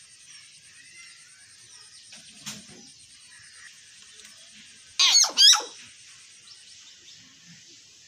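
Common hill myna giving two loud, harsh calls about five seconds in, half a second apart, over faint high chirping of other birds.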